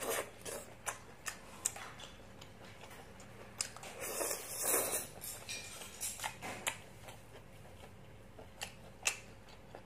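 Eating sounds: scattered small wet clicks and smacks of someone chewing freshly boiled small squid, with a louder, longer smacking stretch about four to five seconds in.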